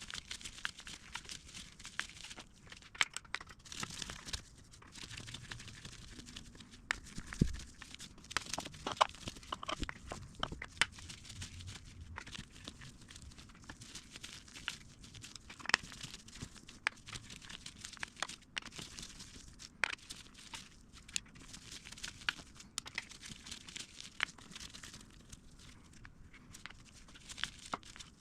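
Hand work on a motorcycle engine: scattered clicks and light knocks of tools and engine parts being handled, with rustling in between.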